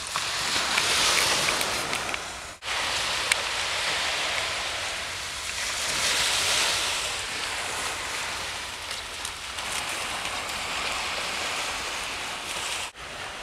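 Gulf surf breaking and washing up a beach, swelling and easing as each wave comes in, with the sound breaking off abruptly twice for a moment.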